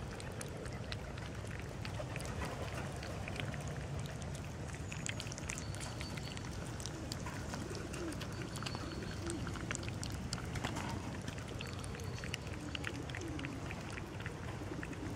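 Cats and kittens eating from a food tray: many small, irregular clicks and smacks of chewing, over a steady low background rumble.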